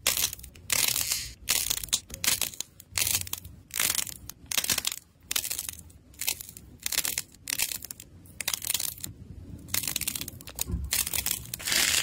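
Crunchy crackling from fingers squeezing a ball of soft clay whose dried outer skin cracks and crumples, in a string of separate bursts roughly one a second.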